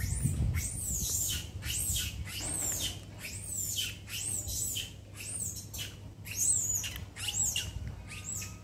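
An animal up in a tree giving a rapid series of short, high-pitched squeaky calls, about two a second, each call rising and then falling in pitch.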